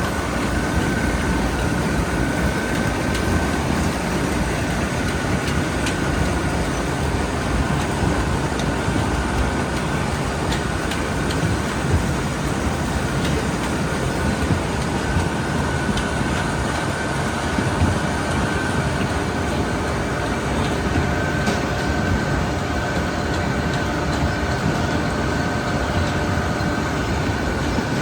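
Grimme Varitron 270 self-propelled potato harvester running steadily while lifting: a continuous mechanical rumble and rattle from the engine and the machine's webs, with a steady high whine throughout.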